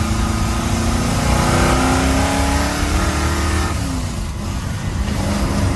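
Ford 351 V8 revved: from about a second in, the engine speed climbs for roughly two seconds, then drops back toward idle. The engine has a bit of a misfire, which the owner puts down to spark plugs needing replacement.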